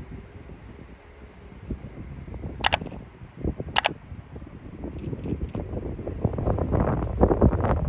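Wind buffeting the microphone, gusting harder over the last two seconds. Two sharp clicks a little over a second apart come near the middle.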